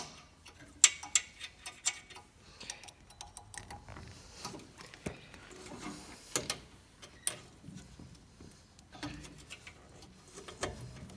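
Irregular light metallic clicks and taps from hands and tools working the exhaust pipe joint and its retaining spring, scattered through the whole stretch with a few sharper ones.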